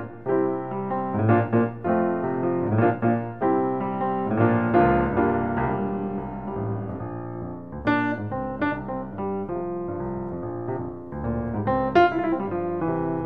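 Piano music: struck notes and chords in a flowing melody, each note fading after it is struck.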